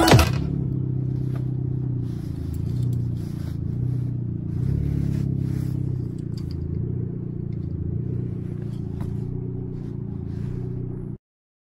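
A car engine idling steadily, a low even hum, with light rustling and a few small clicks over it. It cuts off suddenly near the end.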